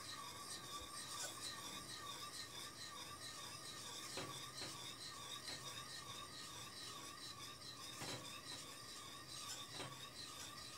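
Faint rasping of a wire whisk stirring semolina into simmering water in a pan, with a few light clicks of the whisk against the pan.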